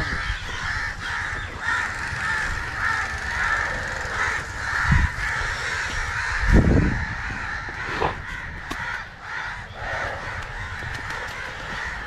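A flock of crows cawing continuously, many calls overlapping. Two dull low thumps, about five and six and a half seconds in, stand out over it.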